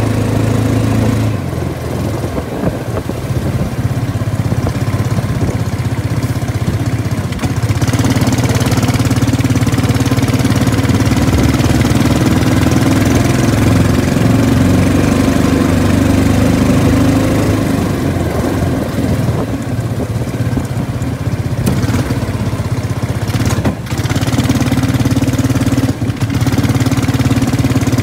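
Predator 212 single-cylinder engine on a Mudskipper surface-drive mud motor, running under way through a header pipe and SuperTrapp disc muffler. The engine note eases off about two seconds in, picks back up around eight seconds, eases again around twenty and comes back up near the end.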